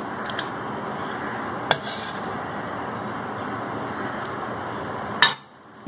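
A spatula scraping chutney out of a metal pan into a glass bowl, with a sharp clink about a second and a half in and a few light ticks, over a steady hiss that cuts off near the end.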